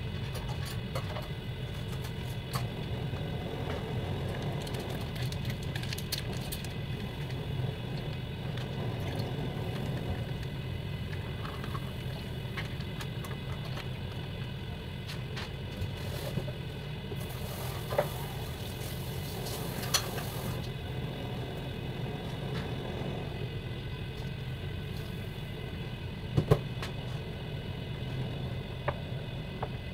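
Steady low mechanical hum of a kitchen appliance. A few light knocks and clinks come on top as packets, utensils and a tray are handled.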